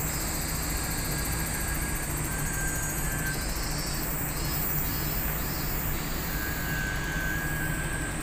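Steady city background hum with insects chirping in the trees overhead, a few short pulsing calls standing out high up.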